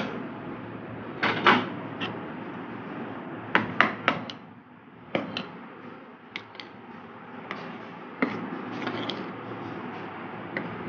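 A spoon stirring thick batter in a metal bowl, with scattered knocks and clinks of the spoon against the side of the bowl, in short clusters.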